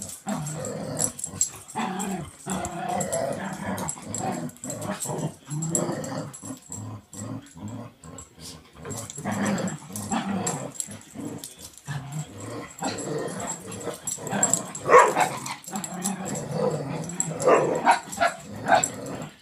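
Dogs play-fighting: low growling runs throughout, broken by sharp barks that come thickest in the last few seconds.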